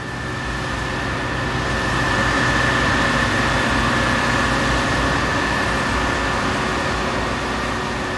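Combine harvester running while it cuts wheat: a steady machine drone with a high whine running through it, growing louder over the first couple of seconds and easing slightly near the end as it passes.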